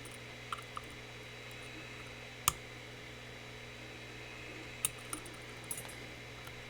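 Small, sharp clicks of lock-picking tools working in a Mul-T-Lock Classic Pro cylinder, coming irregularly, with one louder click about two and a half seconds in, over a steady background hiss and hum.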